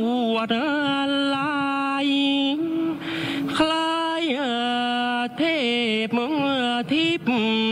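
Thai royal barge song (kap he ruea) sung by a solo voice, a slow chant of long held notes with wavering, sliding ornaments, broken by a brief pause about three seconds in.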